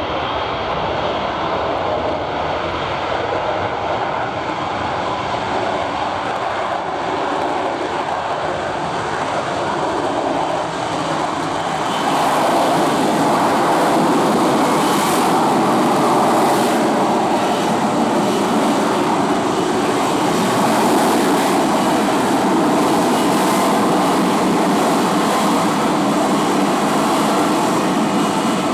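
Lockheed F-35B Lightning II in a jet-borne hover: its F135 turbofan and lift fan running with a loud, steady jet noise. The noise grows louder and brighter about twelve seconds in.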